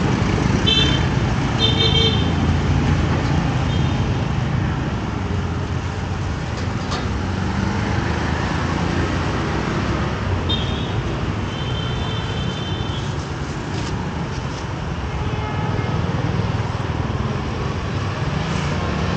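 Road traffic running steadily, with vehicle horns tooting: a few short toots in the first two seconds, and more toots about ten to thirteen seconds in.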